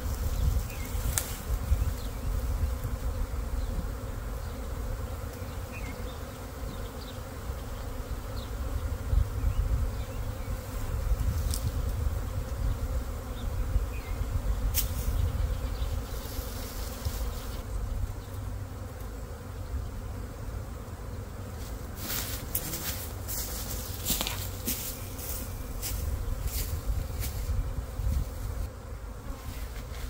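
A disturbed honeybee swarm buzzing steadily all around, the bees agitated after being knocked from their branch. A series of sharp clicks and rustles comes in the last third.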